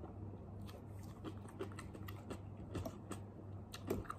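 A person eating cup noodles close to the microphone: the noodles sucked in at the start, then chewing with many small, irregular wet mouth clicks.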